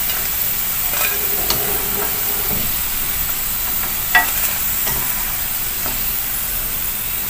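French fries sizzling steadily in hot oil in a frying pan, with a few light clinks of a metal slotted spoon against the pan as the fries are scooped out.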